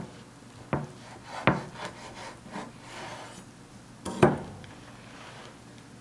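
A knife saws through a thick toasted sandwich with a few crisp crunches of the crust, the blade knocking on the wooden cutting board. There is a second loud knock on the board about four seconds in as the cut halves are handled.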